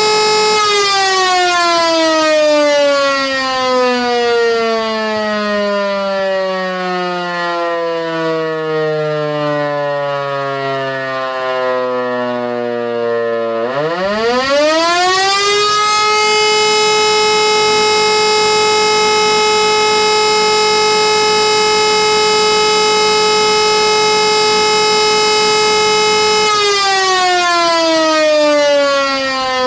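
E57 electromechanical civil-defence siren sounding the interrupted fire-alarm signal. Its steady howl winds down, falling in pitch for about thirteen seconds. About fourteen seconds in it spins back up fast to a steady tone held for about ten seconds, then begins winding down again near the end.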